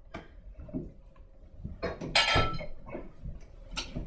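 Wooden dining chairs scraping and knocking against the table and floor as two people get up and push them in. There are a few separate knocks, with the loudest scrape about two seconds in.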